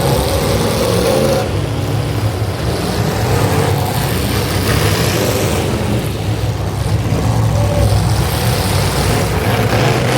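Demolition derby cars' engines running and revving, loud and continuous.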